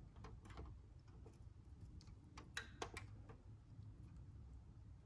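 Near silence: quiet room tone with a few faint, irregular small clicks, the clearest about 2.5 to 3 seconds in.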